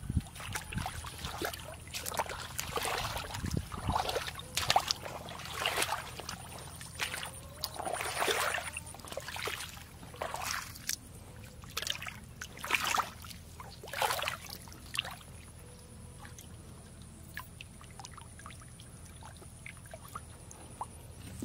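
Sloshing and splashing in shallow muddy water, in irregular strokes about once or twice a second, thinning out after about fifteen seconds.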